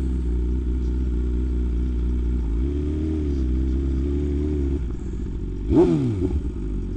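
BMW S1000RR inline-four engine with a full SC-Project exhaust, running at low, steady revs as the bike rolls slowly. About five seconds in the note drops and quietens, and a second later comes a short rev that rises and falls, the loudest moment.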